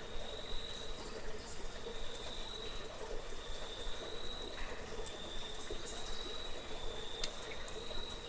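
A cricket holding a steady high trill over a low, trickling burble of water, with scattered small drips and clicks.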